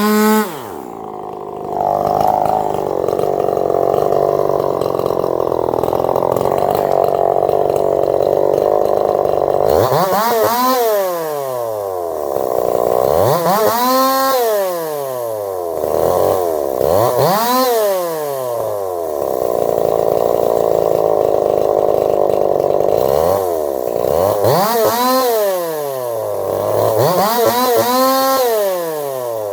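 Two-stroke chainsaw, rebuilt with a swapped piston and crankshaft, bucking cherry wood. It holds a steady high note under load in the cut, and several times it revs up and falls back between cuts.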